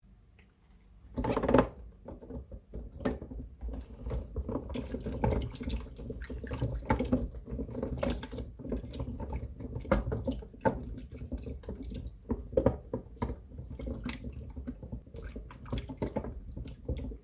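Soaked glycerin soap plates being washed in water: irregular wet squishing and sloshing with many small clicks. The loudest burst comes about a second and a half in.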